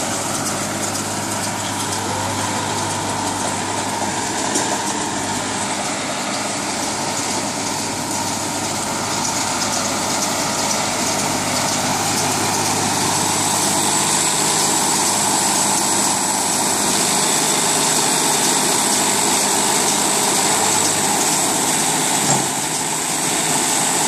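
Tractor engine running steadily, driving a small PTO-powered round baler that is packing sugarcane bagasse into a bale, with the baler's steady mechanical whir. A single sharp knock near the end.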